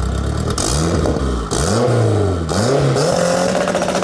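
Honda K24 four-cylinder engine in a Toyota MR2 revved through its twin-outlet exhaust: three quick blips that rise and fall in pitch, then held at a steady higher speed over the last second.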